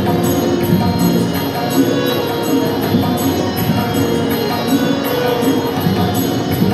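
Live music from a small ensemble: harmonium and a Roland XP-30 synthesizer keyboard playing sustained melody over tabla accompaniment.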